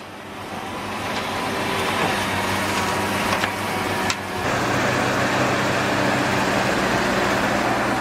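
Large hydraulic excavator's diesel engine running steadily under load, a Komatsu PC1250-7, with a couple of sharp knocks a little past the middle.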